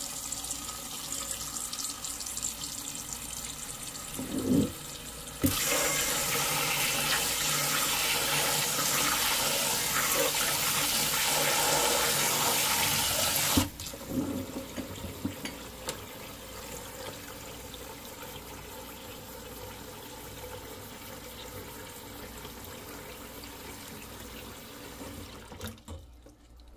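Tap water running into a sink. The flow is heavier for about eight seconds, from roughly five seconds in, then runs lighter until it stops near the end. There are a couple of knocks around four to five seconds in.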